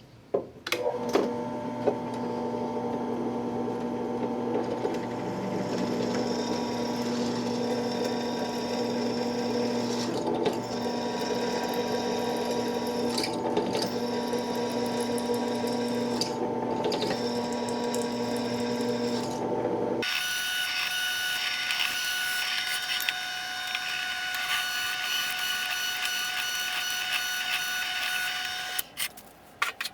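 Drill press motor running steadily while drilling holes partway into aluminium plate. At about 20 s it gives way abruptly to a different, higher-pitched machine whine, which stops shortly before the end.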